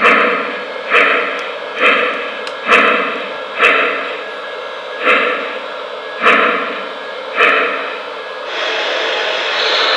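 Onboard sound system of an O gauge model Shay steam locomotive chuffing slowly, about one chuff a second with the beats spreading out as the train creeps along. About eight and a half seconds in, the chuffing gives way to a steady hiss of released steam.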